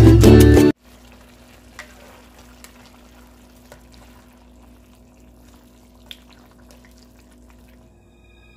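Background music cuts off under a second in, leaving a faint simmer of braised beef stew in a nonstick wok as it is stirred with a spoon, with a few light clicks of the spoon against the pan.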